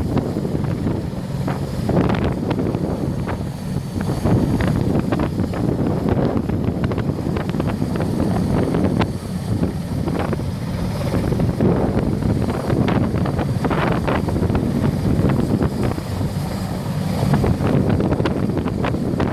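Large helicopter running close by as it takes off, a steady heavy rotor-and-turbine noise with a faint high whine, while its strong rotor downwash buffets the microphone in gusts.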